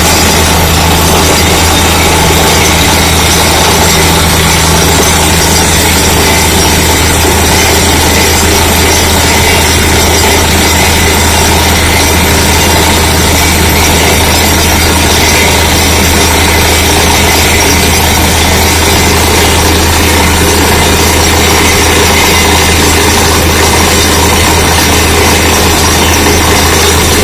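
Truck-mounted down-the-hole (DTH) drilling rig running while drilling: a loud, steady engine and compressed-air noise, the air flushing rock dust up out of the hole.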